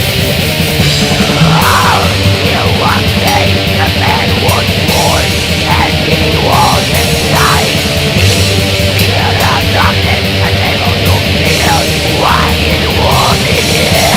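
Heavy metal music: loud, dense distorted guitars and drums with fast cymbal hits, and a wavering, sliding line over the top.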